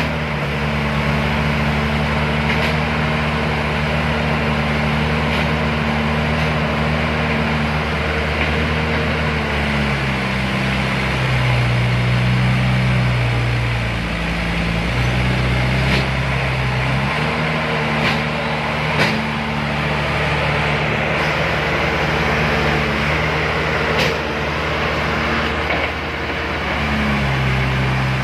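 Heavy diesel engine running under load, its note dropping and rising several times about a third of the way in before settling back to a steady pitch.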